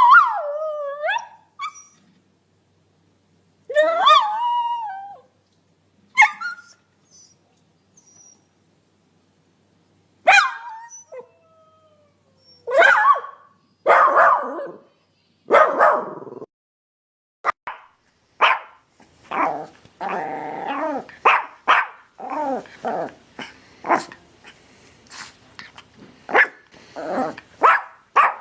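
Dogs barking in a string of separate clips. The first calls are wavering, bending in pitch, with short silences between them, and the barks grow rapid and nearly continuous in the second half.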